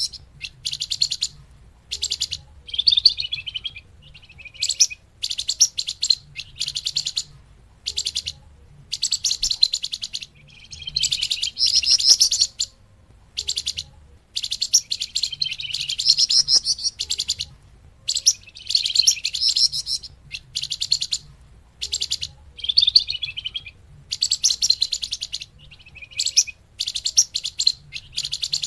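Song of the small bird that Indonesian bird-keepers call flamboyan, played as a lure (pikat) recording. It gives rapid, high-pitched chirping trills in short bouts of about a second, separated by brief pauses, over a faint low hum.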